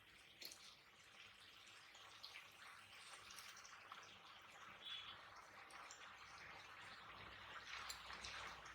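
Faint simmering of chopped tomatoes cooking in a pan: a soft hiss with scattered small ticks and pops, growing slightly louder near the end.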